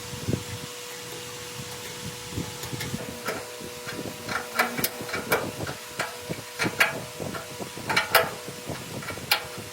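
Irregular light knocks and clinks of hand tools and metal parts being worked on, coming more often after the first few seconds, over a faint steady hum.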